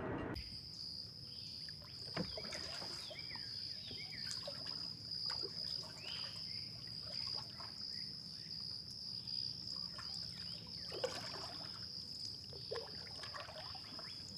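Swampy river ambience: insects keep up a steady high-pitched drone while birds chirp and call on and off. Light water splashes and drips come and go, with a sharper click about eleven seconds in.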